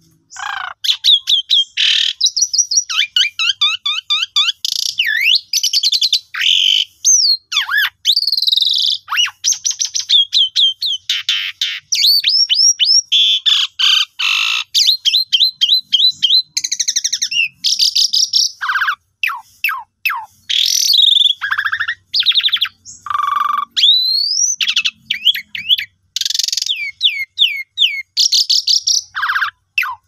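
Pied starling (jalak suren) singing a long, varied song of clear whistles, rising and falling slides and fast chattering note runs, one short phrase after another with only brief gaps.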